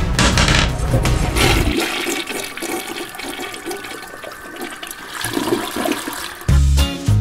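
Toilet flushing: a loud rush of water that dies down over several seconds as the bowl drains.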